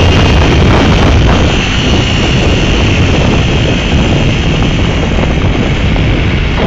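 Motorcycle engine running while riding, under loud, steady wind rush on the microphone.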